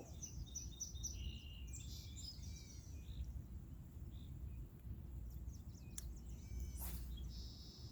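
Small birds chirping and calling intermittently over a steady low outdoor rumble, with a couple of brief clicks about six and seven seconds in.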